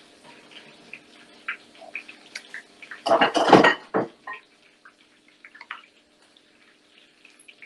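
Kitchen clatter: bowls and utensils knocked and set down on a counter, loudest in a burst about three seconds in, with small clinks around it.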